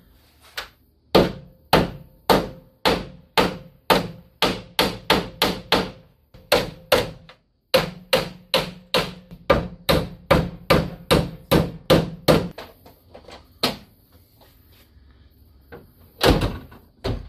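Hammer repeatedly striking the sheet metal of a Jeep Wrangler JK's hood, about two sharp blows a second for some twelve seconds, then a few lighter taps. One louder knock comes near the end.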